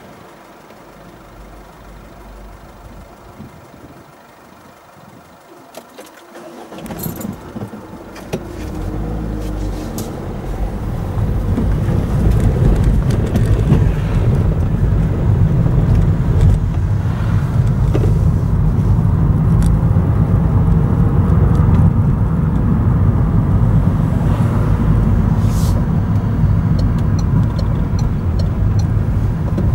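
Car moving off and driving, heard from inside the cabin. It is fairly quiet at first; engine and tyre noise build over about six seconds into a steady low rumble as the car gets under way, with a few light clicks and rattles.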